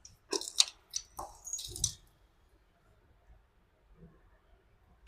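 Cable parts and hand tools being handled while a power cable is prepared for crimping: a quick cluster of small clicks and light knocks in the first two seconds, then quiet, with a sharp metallic clink at the very end.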